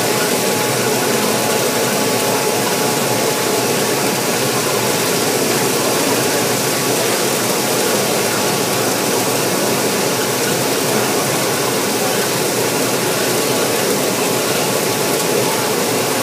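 HTC floor grinder running steadily on a concrete slab: a loud, even machine noise with a faint steady whine.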